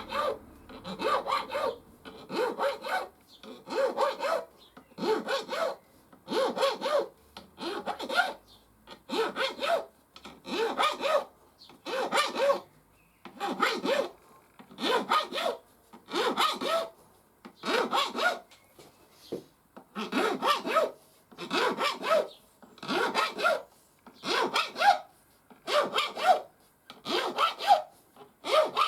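Triangle file stroked up and down along a guitar's fret ends, rounding them over and taking off the tiny burrs. A steady rhythm of rasping strokes, a little over a second apart.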